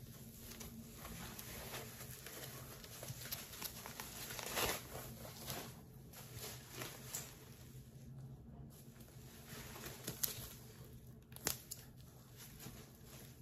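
Packing wrap being pulled off and crumpled as a new handbag is unwrapped: irregular rustling and crinkling with some tearing, swelling about four and a half seconds in, and a few sharp crackles near the end.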